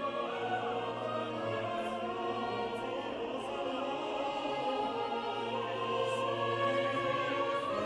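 Slow classical background music with long held chords from voices and orchestra.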